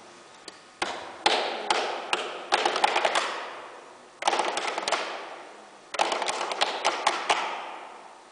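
Wooden chairs used as drums: the frames are struck in rhythmic bursts of sharp knocks, several players together, with pauses between bursts. Each burst rings on in a long echo.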